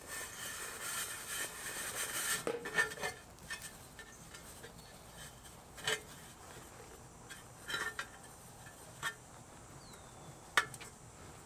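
Ceramic fibre blanket rustling and scraping for a couple of seconds as it is pushed into a metal mini keg, then about six light knocks and clinks, spaced out, as hands press the lining against the keg's shell.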